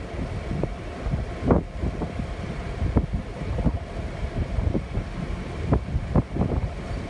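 EMD GP38 and GP9 diesel switching locomotives running at low speed as they move past, with wind buffeting the microphone in irregular low thumps over the engine sound.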